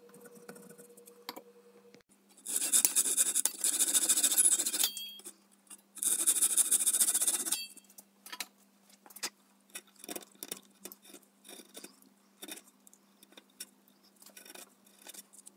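Thin hand saw cutting walnut splines flush with an oak frame's mitred corner, two spells of sawing about two and one and a half seconds long. Then a run of small scrapes and clicks as a chisel pares the corner. A faint steady low hum runs underneath.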